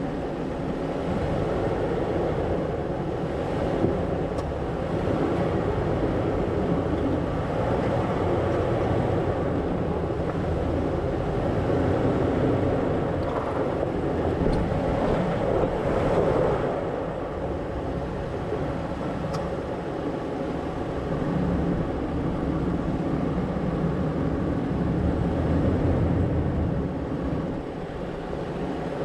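Toyota 4Runner's engine running steadily at low revs as the truck crawls slowly over rock ledges.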